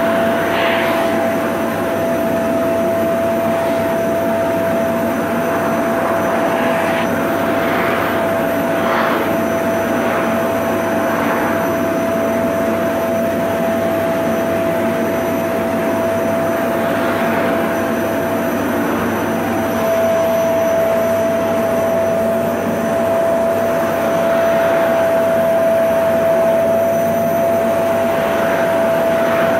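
Vacuum cleaner running steadily: a constant whine over a rushing suction noise, a little louder from about two-thirds of the way through.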